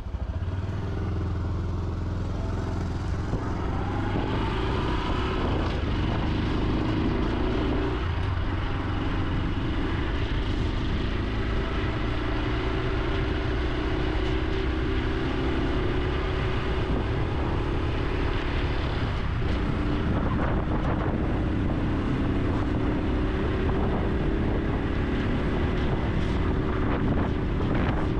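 Honda Super Cub C125's single-cylinder four-stroke engine and exhaust running under way. Its pitch rises as it accelerates a few seconds in, with breaks at gear changes about 8 and 19 seconds in.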